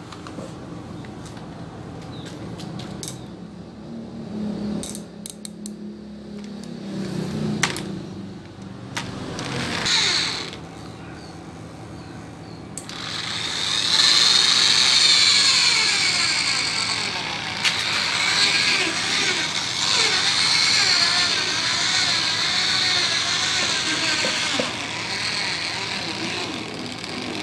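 Electric car polishing machine with a foam pad running on car paint, spreading cutting compound over a door panel at low speed. About halfway through it gets louder and higher-pitched as the pad works the compound into the paint.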